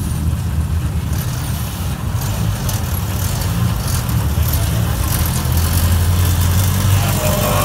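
A lowered mini pickup truck's engine running at low revs as the truck creeps slowly forward, a steady low engine and exhaust sound that grows a little louder about five seconds in.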